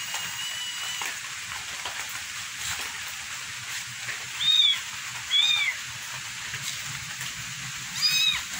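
Young kittens meowing: three short, high-pitched mews, two close together about halfway through and one near the end, over the steady hiss of falling rain.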